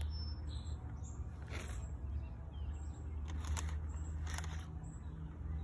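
A steady low hum with faint bird chirps, and a few short rustles as the sneaker is handled close to the microphone.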